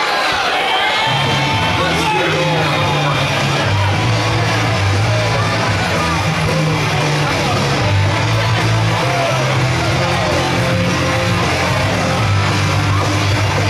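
Loud entrance music playing over an arena sound system, with a heavy bass line that comes in about a second in, and a crowd yelling over it.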